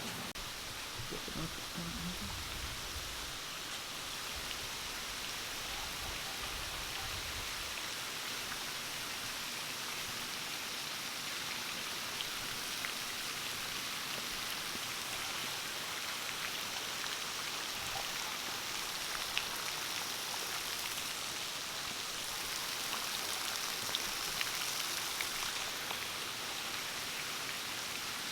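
Heavy tropical downpour: a steady, even hiss of rain falling on surfaces, with a few separate drops striking here and there. A low rumble sits under the rain for the first several seconds.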